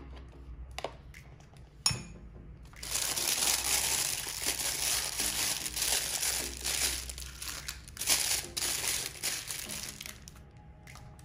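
Thin plastic piping bag crinkling as it is handled and opened out, a dense crackle lasting about seven seconds, preceded by a single sharp click about two seconds in.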